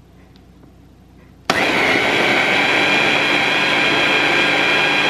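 Electric blender switched on about a second and a half in, running steadily at full speed with a constant motor whine as it purées a batch of hummus.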